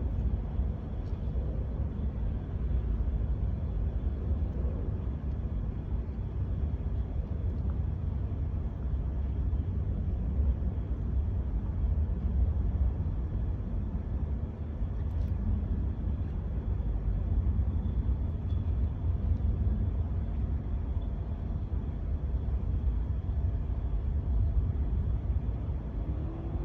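Steady low rumble of a moving vehicle, engine and road noise.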